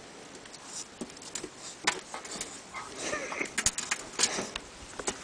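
Clumber spaniel puppy's paws and claws tapping and scrabbling on a hard floor and mirror as it plays: a run of irregular clicks and scrapes, busiest from about three to four and a half seconds in.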